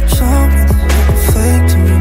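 Background music: a song with a steady beat and a heavy bass line.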